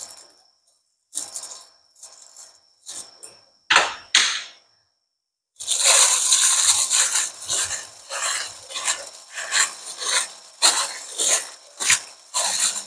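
A few short clinks and scrapes of a spoon on a stainless steel bowl as minced garlic and shallot go in. Then, about six seconds in, the rustle and squish of a plastic food glove as a hand mixes marinated beef chunks against the bowl, in repeated strokes.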